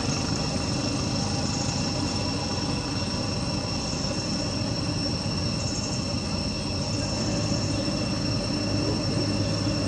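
Steady outdoor background noise: a low rumble with several constant high-pitched tones held above it and no distinct calls or knocks.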